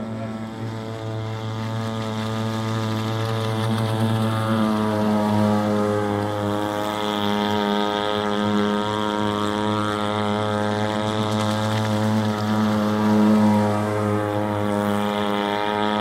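Gas engine of a radio-controlled scale cruiser model boat running at steady speed on the water, a continuous even drone that grows louder over the first few seconds and then holds.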